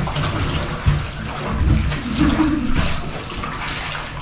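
Water sloshing and splashing in irregular surges as muddy, bog-stained hiking clothes are washed by hand.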